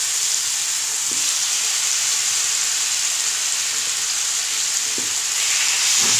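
Marinated chicken breast slices sizzling steadily as they fry in a little oil in a pan, the sizzle growing a little louder near the end.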